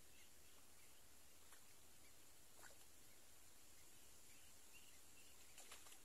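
Near silence: faint outdoor ambience with scattered faint, high, short chirps and a few soft clicks, the clearest of them near the end.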